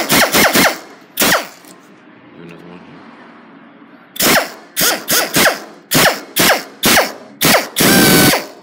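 Hand-held power drill run in short trigger bursts, drilling the heads off old eighth-inch plain aluminum rivets in an aircraft aileron's balance weight. There are three quick bursts at the start, one more a second later, then a rapid string of about eight near the end, the last one longer. The pitch drops within each burst.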